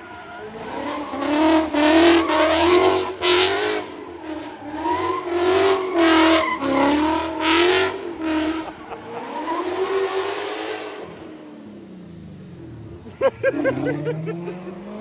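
Ford Mustang spinning its rear tyres in a smoky drift: a series of loud, wavering tyre squeals over the revving engine, dying away about eleven seconds in.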